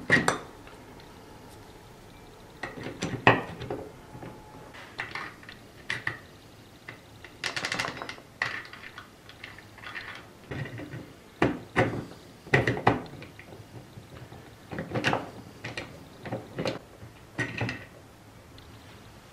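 Cast iron parts of a 1940 Hercus lathe's cross slide and compound rest clinking and knocking as they are handled and fitted together by hand, with irregular metallic clatters spread throughout.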